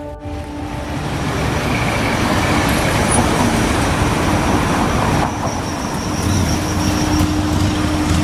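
City street traffic: motor vehicles passing on the road, a steady noise of engines and tyres that swells about a second in.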